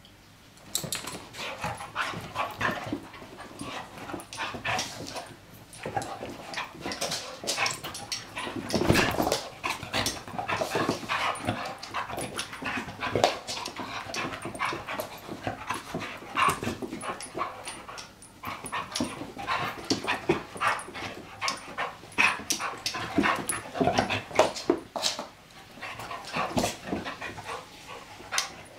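Two dogs play-fighting: a run of short, irregular dog vocal noises mixed with scuffling and bumps as they wrestle, starting about a second in.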